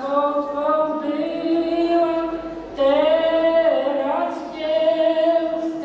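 An elderly man singing solo and unaccompanied, a slow traditional Polish song sung in long held notes. One phrase ends and the next begins about three seconds in.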